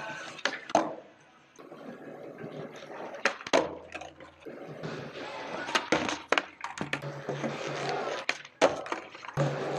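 Skateboard on a concrete garage floor: wheels rolling with a series of sharp clacks as the tail pops and the board lands during ollies.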